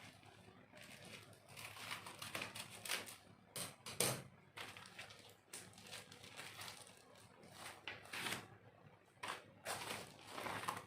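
Parcel packaging being unwrapped by hand: irregular rustling and crinkling, with a sharp crack about four seconds in.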